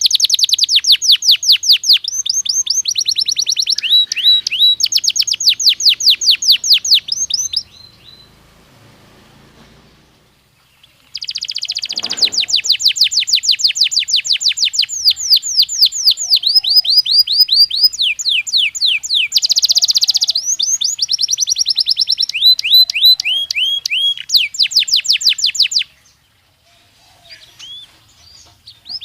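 Belgian canary singing: long phrases of rapid, repeated sweeping notes and trills, broken by two pauses of a few seconds, one near the start and one near the end.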